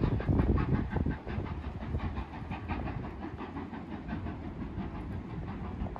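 BR Standard 5 two-cylinder steam locomotive working away from the station, its exhaust beats a quick even chuffing that grows fainter as the train moves off.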